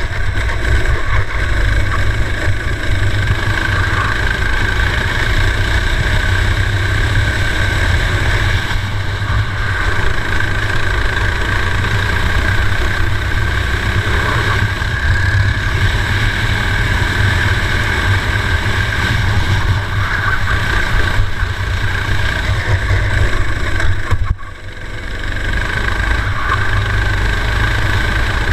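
Racing kart engine running at speed, heard onboard, its pitch rising and falling with the throttle over a heavy low rumble. The level dips sharply for a moment a few seconds before the end.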